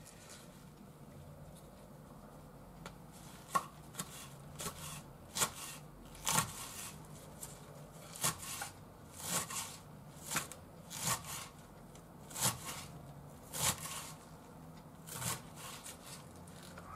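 Kitchen knife slicing a cabbage on a wooden cutting board: irregular cuts, about one a second, each ending in a knock on the board. The cuts start a few seconds in.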